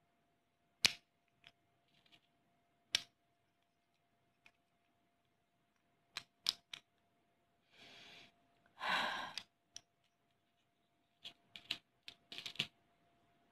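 Hard homemade naphthalene (mothball) heart pieces tapped and clicked against each other by hand: single sharp clicks spread through, a quick run of them near the end, and two brief scraping rubs in the middle, the second louder.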